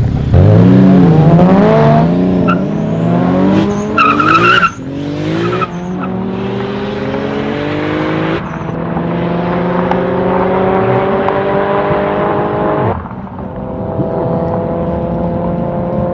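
Two modified cars, a BMW E46 and a VW Golf, launching side by side at full throttle and accelerating away. The engine pitch wavers at the launch, then climbs through each gear and drops at upshifts about two, five, eight and thirteen seconds in. A brief high squeal comes about four seconds in, and the sound grows quieter as the cars pull away.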